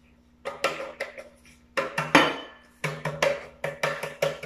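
Metal baking tray being shaken to spread dusted flour over its greased inside: an irregular run of sharp knocks and rattles, starting about half a second in.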